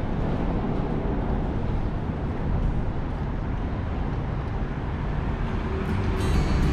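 Steady low rumble of city road traffic, an even wash of noise with no distinct events.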